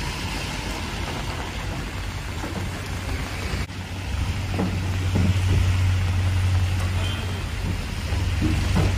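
Steady rain hiss on a wet street with the low, steady hum of a vehicle engine underneath. The engine hum becomes louder after a cut about four seconds in.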